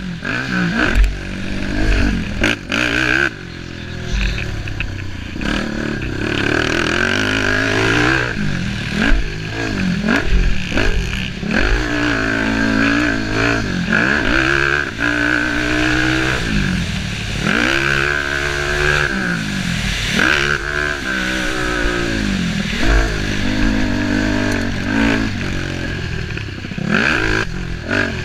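A racing vehicle's engine revving up and dropping back again and again, its pitch climbing and falling every second or two.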